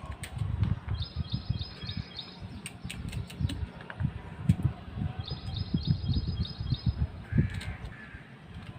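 Knife chopping coconut into small pieces on a cutting board, a string of irregular thuds. A bird chirps in the background in two quick runs of about six chirps, about a second in and again about five seconds in.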